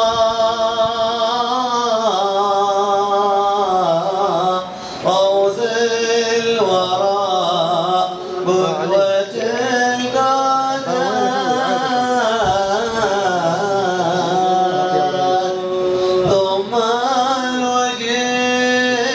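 A man singing an Arabic religious nasheed (Sufi inshad), drawing one word out over long, wavering melismatic notes, with a couple of brief pauses.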